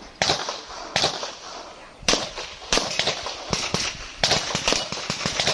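A string of handgun shots fired by a competitor shooting a practical pistol course. The first few come about a second apart, then they speed up into quick runs of shots near the end.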